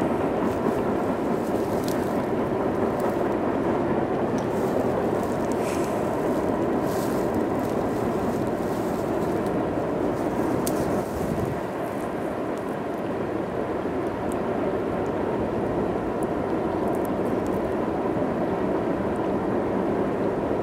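Long freight train of covered hopper cars rolling across a trestle bridge: a steady rumble of steel wheels on rail, with a few light clicks.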